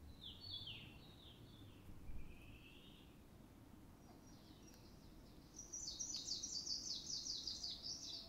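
Songbirds singing: a short phrase of falling high notes at the start, a brief softer phrase about two seconds in, then a fast, louder run of repeated high notes from about five and a half seconds on.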